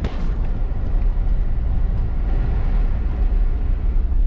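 Cab interior of a four-wheel-drive ute on a dirt track: a steady low rumble of engine and tyres on gravel, with a single knock right at the start.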